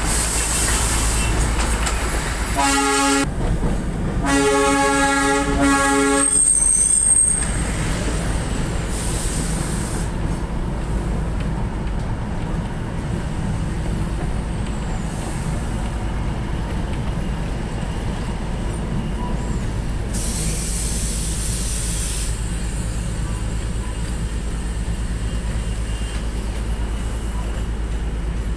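Darjeeling toy train sounding its horn, a short blast about three seconds in and a longer one from about four to six seconds, with a brief high squeal just after. After that comes the steady low rumble of the train running.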